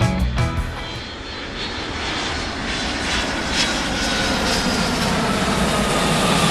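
Airplane engines running: a steady rushing noise with a faint whine that slowly drops in pitch.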